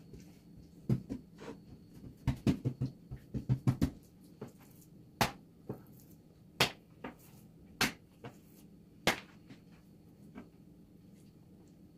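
Kitchen utensils and dishes being handled during food preparation: a quick flurry of soft knocks and taps for a few seconds, then four sharp clicks about a second and a half apart, with fainter taps between them.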